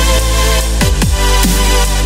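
Background electronic music with a steady beat and deep falling bass notes.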